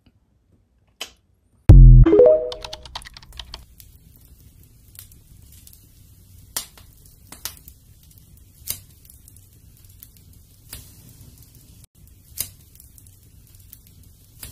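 A loud, deep boom with a short ringing tone about two seconds in, then a wood fire crackling, with scattered sharp pops over a low steady rumble.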